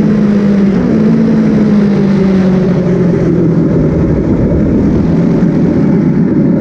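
Track motorcycle engine heard from an onboard camera, with loud wind rush. The engine note falls slowly as the bike slows and leans into a corner.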